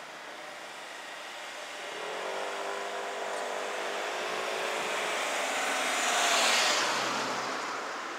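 A road vehicle passing close by: its engine note builds, then drops in pitch as it goes past, with the loudest rush of tyre and air noise about six and a half seconds in, then fading away.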